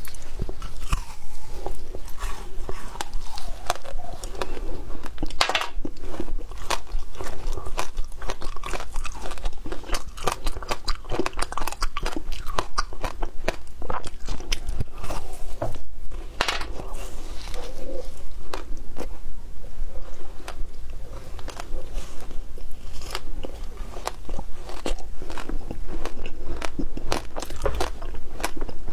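Crunching and chewing of frozen passion fruit ice, bitten off a thin slab in a dense, unbroken run of sharp cracking bites.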